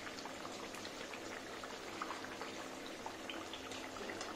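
Stuffed chandrakala pastries deep-frying in a steel kadhai on medium-low heat: a steady gentle sizzle with scattered small pops and crackles.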